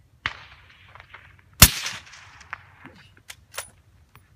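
Two suppressed rifle shots from a bolt-action 6.5 Creedmoor about a second and a half apart, the second the louder, each trailing off in echo, followed by a few light clicks.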